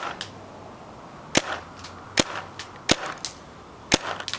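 Paintball gun firing a run of single shots about a second apart, each a sharp pop followed by a fainter click.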